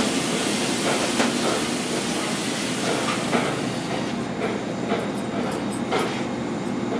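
Working kitchen noise: a steady rumbling hum of ventilation and equipment with scattered clinks and knocks of handling.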